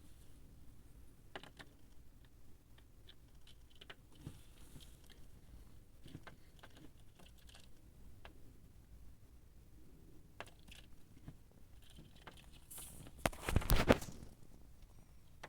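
Scattered light taps and clicks, with a loud rapid cluster of taps about thirteen seconds in.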